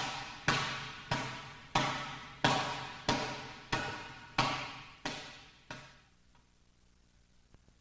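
Iron palm strikes on a cloth training bag on a cement-block stand: a steady run of sharp slaps, about one and a half a second, each followed by a long echoing fade. The strikes stop about six seconds in.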